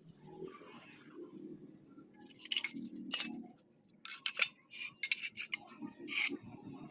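Metal pieces clinking and scraping as they are handled: a faint scrape at first, then a run of sharp separate clinks from about two seconds in.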